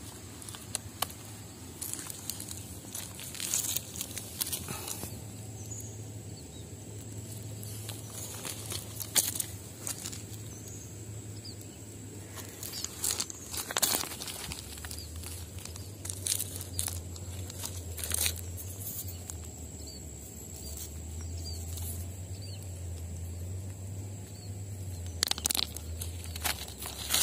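Footsteps crunching over river gravel and cobbles, with irregular clicks of pebbles knocking together over a low steady rumble on the microphone. A faint steady high whine runs underneath.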